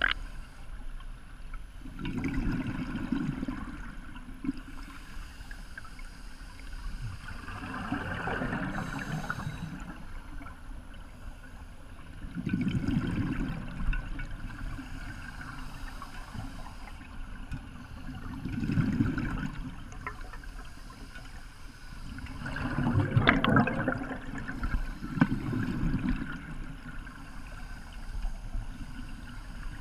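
Scuba diver breathing through a regulator underwater: exhaled bubbles gurgle out in separate bursts every few seconds, about six in all, over a steady low background.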